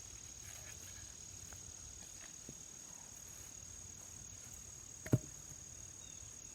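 Crickets trilling steadily in a continuous high-pitched tone, with a single dull thump about five seconds in.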